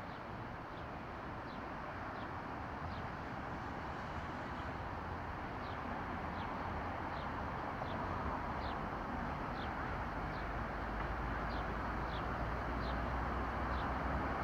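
Steady distant city traffic hum, with a deep rumble growing louder through the second half. A small bird gives short high chirps, a little more than once a second.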